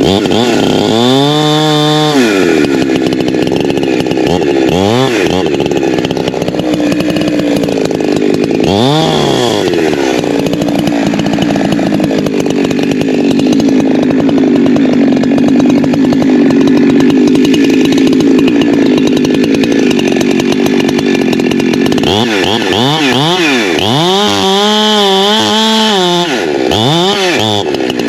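Holzfforma G372XP Pro two-stroke chainsaw running hard: revved up and down a few times, held at a steady pitch through a long cut in the middle, then blipped up and down several times near the end.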